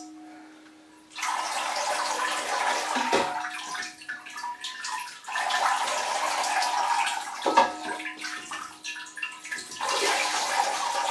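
Water poured from a jug into a bark-filled orchid pot, running through and splashing into a glass bowl below, in three spells of pouring. There are a couple of light knocks in between.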